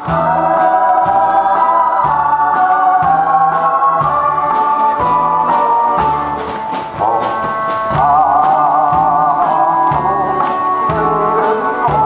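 A man singing into a handheld microphone through a PA, over a backing track with a steady beat.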